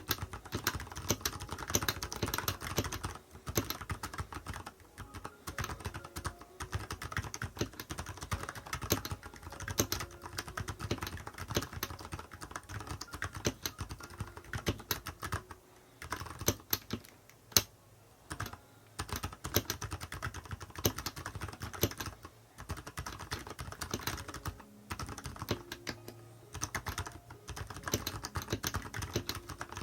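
Typing on a Nuphy Halo 65 mechanical keyboard fitted with silent tactile brown switches, fast continuous keystrokes with muted clacks. The typing slows to a few single keystrokes just past the middle, then picks up again.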